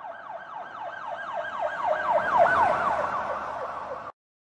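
Emergency-vehicle siren in a fast yelp, sweeping up and down about four times a second. It grows louder, fades, and cuts off suddenly about four seconds in.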